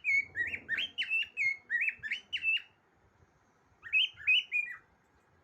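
Cockatiel singing: a quick run of about nine short whistled notes, each sliding up and down in pitch, then after a pause of about a second a shorter phrase of four notes.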